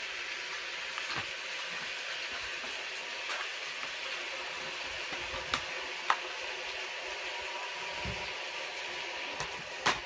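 Steady hiss of rain falling outside, with a few sharp clicks, the loudest near the end.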